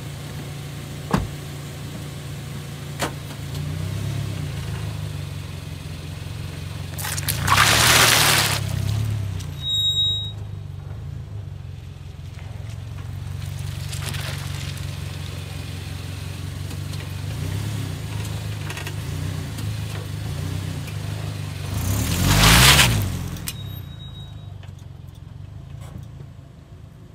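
A Toyota SUV's engine runs steadily with a low hum. About eight seconds in there is a loud surge of engine and tyre noise as the car rolls over a row of cucumbers and tomatoes, and a second loud pass comes a little after twenty-two seconds. A couple of short clicks sound early on.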